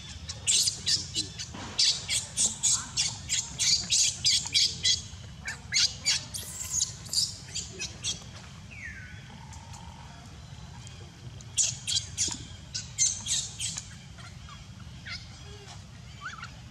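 Newborn baby macaque screaming in short, high-pitched squeals, several a second, in rapid runs with a quieter gap midway.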